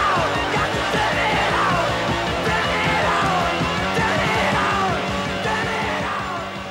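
Hard rock music with a fast, steady beat and yelled vocals that rise and fall in pitch.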